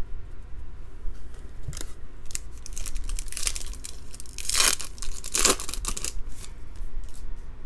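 A foil trading-card pack crinkling as it is handled and torn open. The two loudest rips come about four and a half seconds in and again a second later.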